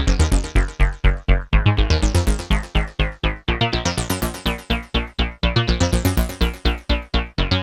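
Behringer JT Mini synthesizer playing a bass patch: a fast, even run of short low notes, several a second, each bright at its start and quickly dulling.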